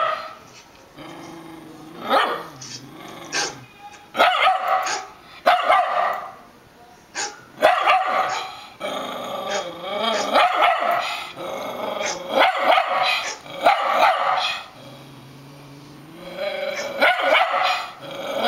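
Dogs barking and growling in repeated bursts: a dog barking in a video played through computer speakers, with a rat terrier barking back at the screen.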